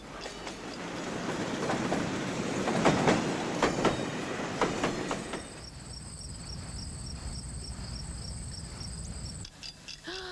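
Rumbling, clattering mechanical noise with sharp clacks, loudest about three seconds in. From about five seconds in a steady rumble carries a high, pulsing whine, and it all cuts off suddenly near the end.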